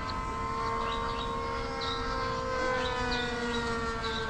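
Remote-control model airplane in flight, a steady whine with overtones that slowly drops in pitch.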